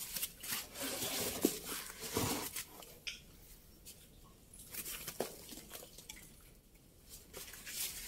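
Rustling and scraping with scattered sharp clicks, loudest for the first couple of seconds, then fainter with a few isolated clicks.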